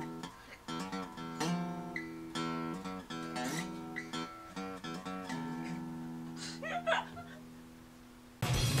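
Acoustic guitar strummed: a string of chords played at a halting pace, the last one left to ring and fade. A short laugh comes near the end, then a different music track cuts in abruptly.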